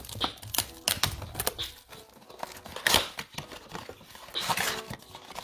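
Plastic shrink-wrap being torn off a trading-card blaster box and crinkled in the hands: an irregular run of crackles and tearing sounds, with one sharper snap about halfway through.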